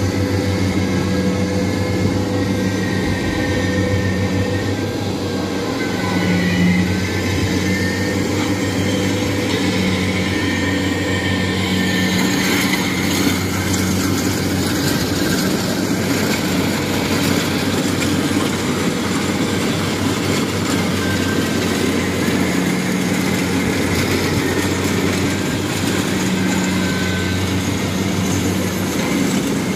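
Kubota DC-70 Plus combine harvester's diesel engine running steadily under load, with the clatter of its cutting and threshing works, as it harvests rice in a flooded paddy. The machinery noise grows harsher about twelve seconds in.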